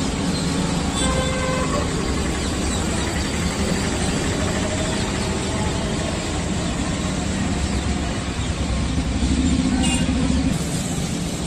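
Steady road traffic noise with engine rumble, one vehicle passing louder about nine to ten seconds in.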